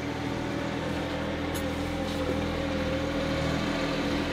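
A steady machine hum with one slightly wavering higher tone, with no knocks or breaks.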